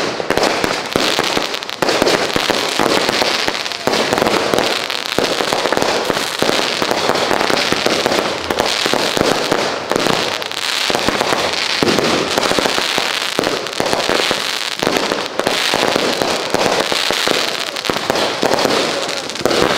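Multi-shot consumer firework cake firing a rapid, unbroken string of launches and aerial bursts, one bang after another with no pause.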